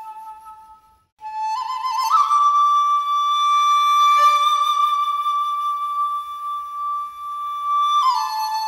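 Solo flute music playing slow, long-held notes. After a brief break about a second in, it climbs with a few ornamented turns to a higher note, holds it for several seconds, and steps back down near the end.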